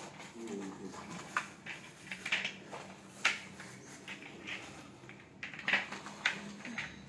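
Hard plastic parts of a study chair knocking and clicking against each other, a few sharp clicks a second or so apart, as the star-shaped base is handled and fitted.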